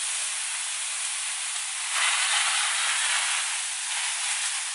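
Fire hose spraying water, a steady hiss that swells louder about two seconds in for a second or so.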